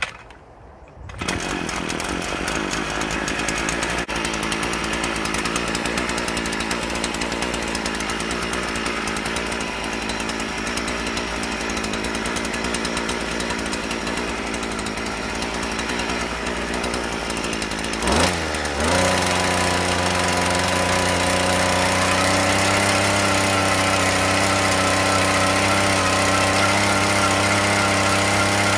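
Hyundai HYEA5200X two-stroke petrol earth auger running at high revs as its spiral bit bores into clay soil, starting about a second in. Past the two-thirds mark the engine note changes, with a brief rise in pitch, then settles into a steadier, more even drone.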